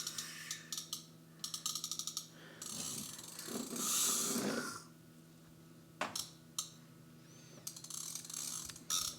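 A toy car being handled and rolled, making rapid runs of ratchet-like plastic clicking and rasping, with a couple of single clicks later on.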